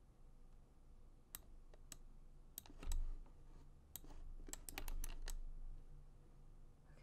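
Computer mouse buttons and keyboard keys being clicked at the desk while navigating the 3D software. The presses come singly, then in a quick run of several clicks about five seconds in. A soft low thump comes about three seconds in.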